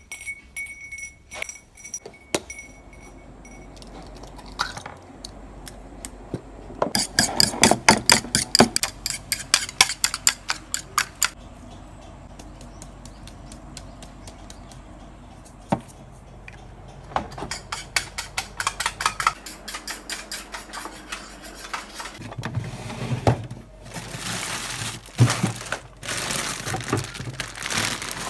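A fork beating egg in a ceramic bowl, in two quick runs of metal-on-china clinks, about five a second. Near the end come rustling plastic bags and things knocked about in a fridge.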